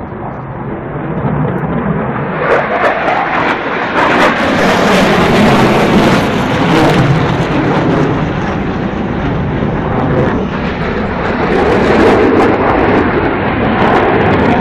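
Fighter jet flying overhead, its engine noise a loud, steady roar that swells about two seconds in and stays up.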